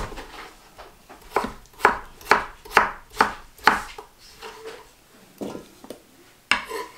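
Chef's knife chopping peeled potatoes on a wooden cutting board: about six sharp knocks, roughly two a second, followed by a few softer knocks near the end.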